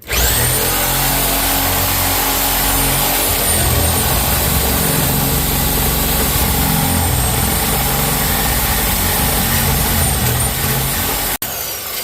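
Loud, steady machine noise that starts abruptly, with a wavering high whine over a pulsing low drone, cutting off sharply near the end.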